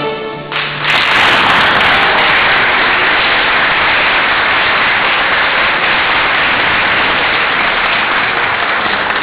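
A cavaquinho ensemble's last chord dies away about half a second in, then an audience applauds steadily.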